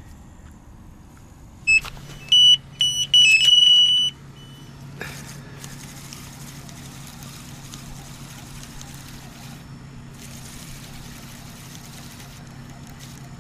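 Electronic bite alarm on a carp rod beeping, a quick run of short high beeps running into a held tone of about a second: a fish taking line, a bite.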